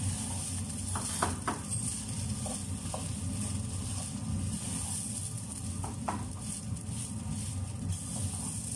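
A wooden spatula stirs rice in a large granite-coated pot over a gas flame, with a steady sizzle. A few short scrapes and taps of the spatula against the pot come about a second in and again about six seconds in, over a steady low hum.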